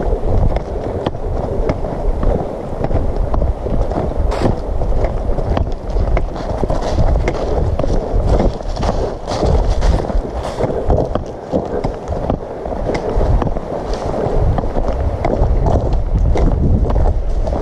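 Footsteps crunching on a gravel road, with irregular sharp crunches and a low rumble of wind on the microphone.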